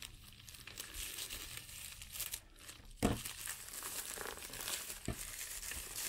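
Plastic mailer envelope crinkling and tearing as it is cut open with a knife and the wrapped item inside is pulled out. Two sharp clicks stand out, about three and about five seconds in.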